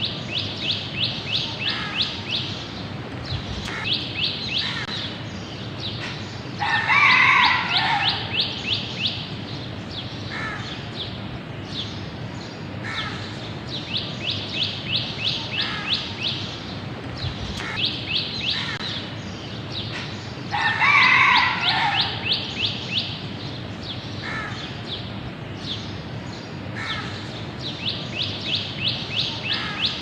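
A rooster crows twice, about 14 seconds apart, over repeated bursts of rapid, high-pitched chirping from a small bird. A steady low rumble, like distant city traffic, runs underneath.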